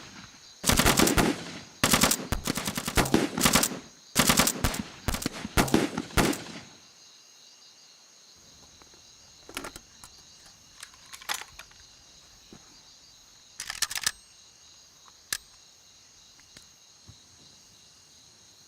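Automatic rifle fire: several long rapid bursts over the first six seconds or so, then a few scattered single shots and short bursts.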